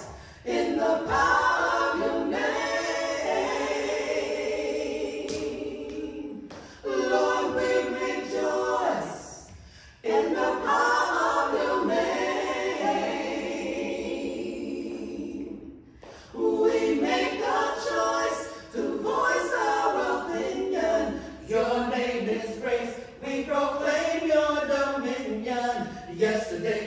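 Small praise team of women singing a gospel praise song a cappella into microphones, in long sung phrases with brief breaks between them.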